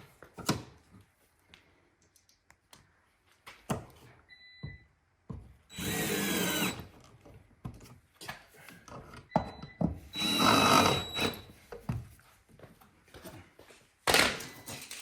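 Power drill run in short bursts of a second or two, three times, with scattered knocks and clicks of handling in between.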